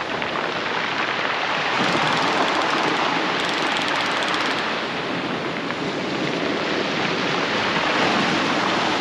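Sea swell washing along the shore, a steady rush of water that rises and eases slowly.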